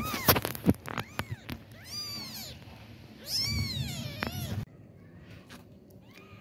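Very young kitten mewing about four times in high, thin calls that rise and fall in pitch. The last call, about three seconds in, is the longest and loudest. A few light clicks come in the first second and a half.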